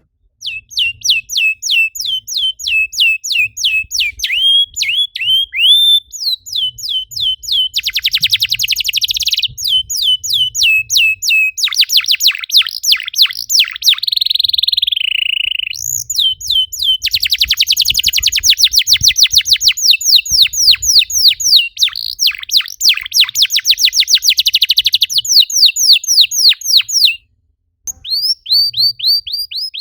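Domestic canary singing a long, loud, fast song of sharp repeated chirps and rapid trills, the kind played as a lure song to set other canaries singing. The song breaks off for about a second near the end, then resumes.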